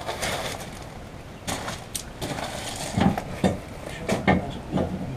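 A series of sharp metallic knocks and clanks, about six of them a second or less apart, without any engine running.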